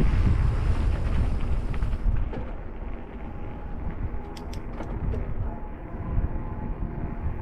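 Wind buffeting the microphone of a camera carried on a moving mountain bike, a heavy low rumble that eases after about two seconds, with a few sharp clicks near the middle.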